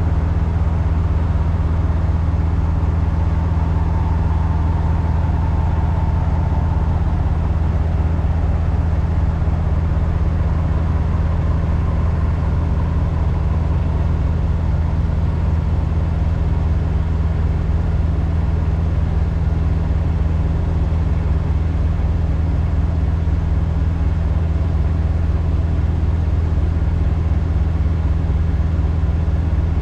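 Peterbilt semi truck's diesel engine running steadily at low revs while the truck is backed into a tight spot.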